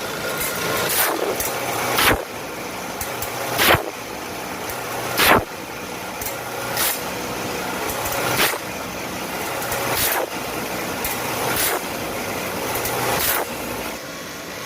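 Band saw blade sharpening machine running, with a short grinding sweep repeating about every one and a half seconds over a steady motor noise.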